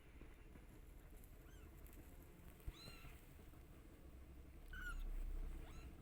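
Young kittens mewing: four short, high-pitched squeaky mews spread over a few seconds. A single sharp click comes just before the second mew, and a low rumble swells near the end.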